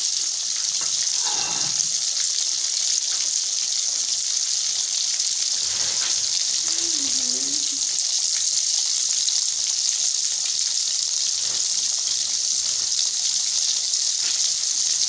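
Masala-coated fish pieces deep-frying in hot oil in a kadhai, a steady hissing sizzle. The fish has fried to a crispy brown and is close to done.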